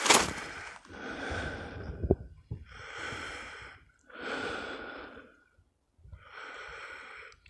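A person breathing heavily while snowshoeing: about four long, noisy breaths, each a little over a second, with short pauses between them and a couple of faint knocks about two seconds in.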